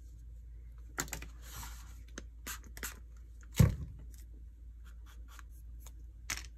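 Small handling noises at a craft table: a brief rustle about a second in as a paint tube is handled and squeezed, one dull thump about halfway through as something is set down on the table, then light scrapes and clicks of a palette knife on a paper plate.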